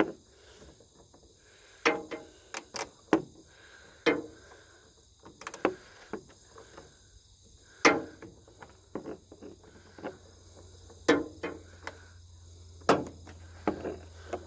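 Irregular metallic clicks and knocks from a socket wrench tightening the bolts that hold a van's tail light assembly in place. Crickets chirp steadily in the background.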